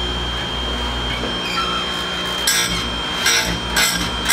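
Electric chainsaw-chain grinder running with a steady hum and whine. From about halfway on, its grinding wheel is brought down on the chain's cutter teeth in a run of short, rasping grinding strokes.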